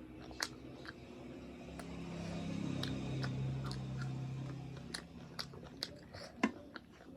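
Close-miked chewing with wet mouth clicks and smacks, a person eating rice with buffalo-meat gravy and pickles. A low steady hum swells up in the middle and fades away after about five seconds.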